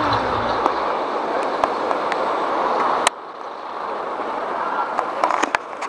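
Background music cuts off about a second in, leaving steady street ambience with traffic noise. A sudden click comes about three seconds in, and a few sharp clacks come near the end.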